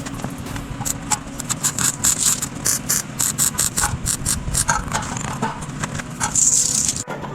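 Construction work: a quick, uneven run of short, sharp scraping strokes over a steady low hum, cutting off abruptly about seven seconds in.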